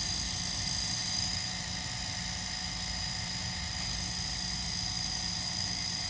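Jazzy 1103 Ultra power wheelchair's brushed DC drive motor and gearbox running steadily on battery power, a steady high whine over a low hum. The motor, seized by rust between rotor and stator, turns freely again after cleaning.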